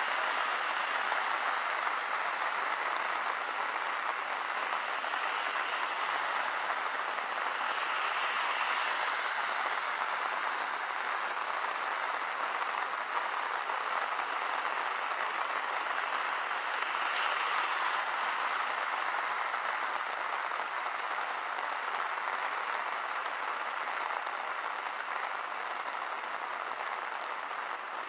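Steady rain falling, an even hiss that swells slightly twice.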